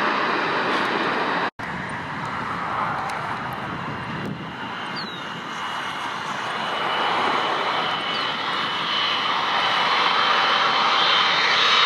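Heavy jet airliner on landing approach: a steady engine rush with a high whine, growing louder toward the end. A sudden brief dropout about a second and a half in.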